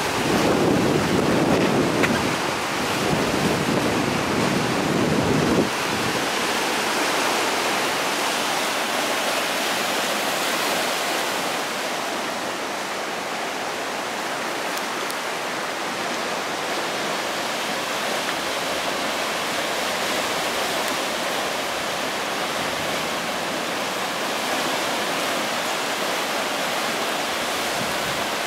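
Waves breaking and washing over a rocky basalt shore, heard as a steady hiss of surf. For about the first six seconds wind buffets the microphone with a low rumble, which then stops abruptly.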